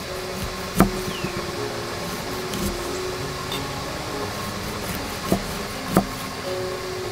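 A steady background hiss with three sharp knocks of a utensil against a cooking pot: one about a second in and two close together near the end.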